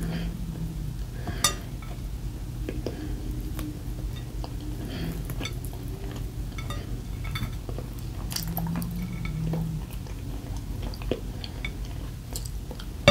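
Light clinks of cutlery and dishes with chewing as breakfast is eaten at a table. Scattered small clicks, one sharper about a second and a half in.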